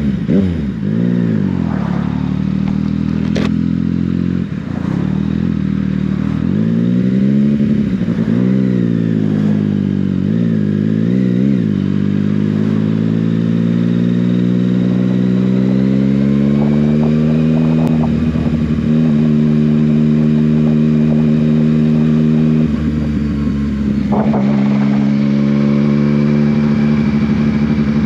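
Yamaha Tracer 900GT's 847 cc inline-three engine through an Akrapovic exhaust, under way on the road. The revs rise and fall repeatedly for the first dozen seconds, then climb slowly and hold at a steady cruise.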